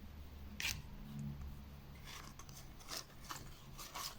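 A handful of faint, short rustles and clicks of Panini Adrenalyn XL trading cards being handled and slid over one another.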